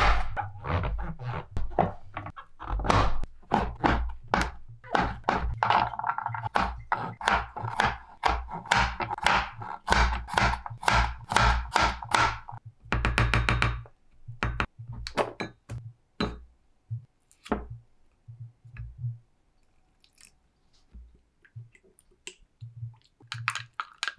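Kitchen knife chopping garlic cloves on a bamboo cutting board: a run of quick knocks, about two to three a second, for roughly the first twelve seconds, then scattered lighter taps.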